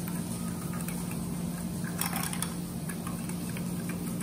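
Wire whisk beating yogurt in a glass bowl, with light ticks of the whisk against the glass, over a steady low hum.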